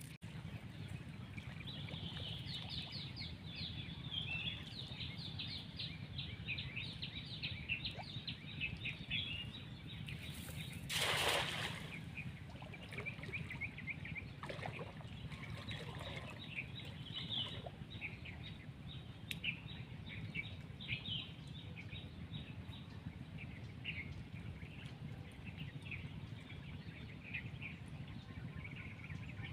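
Small birds chirping repeatedly over a steady low background rumble, with one brief louder rush of noise about eleven seconds in.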